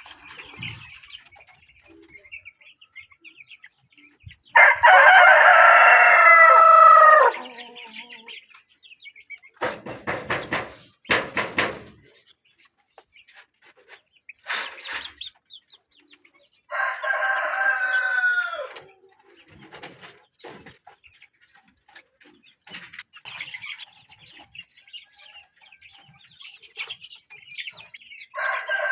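A rooster crowing three times: a long crow about five seconds in, another around seventeen seconds, and a third starting at the very end, each falling away at its close. Chickens cluck softly between the crows, with a few sharp knocks around ten to fifteen seconds in.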